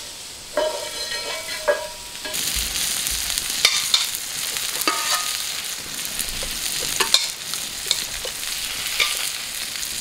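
Food frying with a steady sizzle on a very hot cooking surface, starting about two seconds in, with scattered sharp clicks over it. A couple of knocks come just before the sizzle starts.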